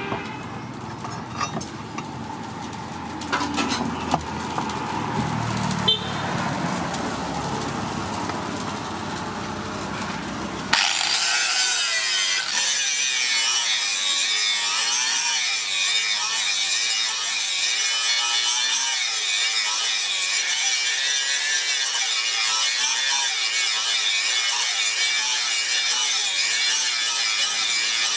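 Handheld angle grinder with a flap disc grinding a steel knife blade: a steady high-pitched hiss and whine that starts abruptly about eleven seconds in and holds steady. Before it, quieter scraping of metal against the wooden block with a few sharp knocks.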